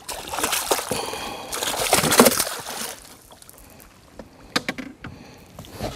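A hooked fish thrashing and splashing at the water's surface beside the boat. The splashing is loudest about two seconds in and dies away after about three seconds. A few sharp knocks follow near the end.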